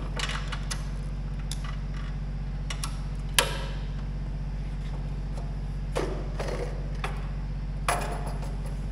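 Scattered clicks and knocks of the garden tractor's seat and fittings being handled as the seat is tipped up, the sharpest about three and a half seconds in, over a steady low hum.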